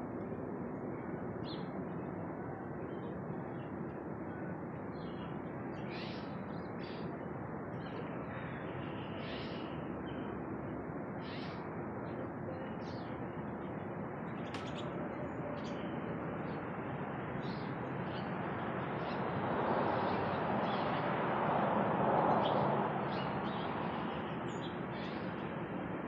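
Backyard birds giving short, scattered high chirps over a steady background rush, which swells louder about twenty seconds in and then fades back.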